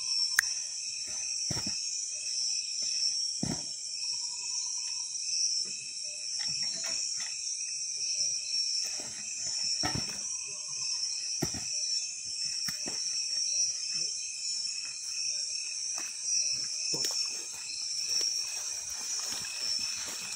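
Steady, high-pitched chorus of insects, typical of crickets, with scattered short clicks and knocks of handling noise.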